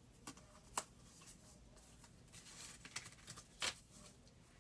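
Faint handling of small playing cards on a paper-covered craft table: light rustling and a few soft clicks as the cards are sorted and one is laid down, the loudest click about three and a half seconds in.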